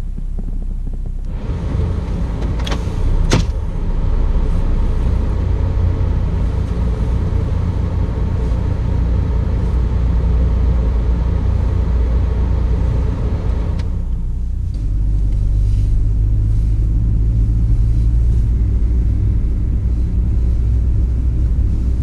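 Idling car engine heard from inside the cabin as a steady low rumble, at about 716 rpm with the vehicle stationary. Two sharp clicks about three seconds in, and the low hum shifts slightly in tone a little past halfway.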